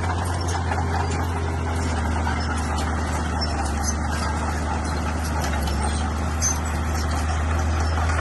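Bulldozer's diesel engine running with a steady low drone and a constant mechanical rumble.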